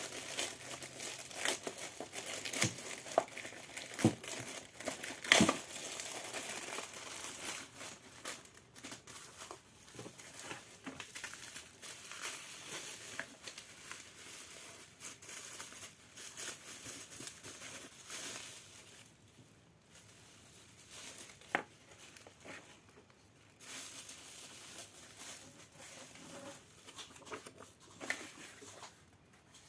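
Plastic packaging crinkling and rustling as a parcel is handled and unwrapped, with a few sharp clicks in the first six seconds. The rustling grows quieter from about two-thirds of the way through.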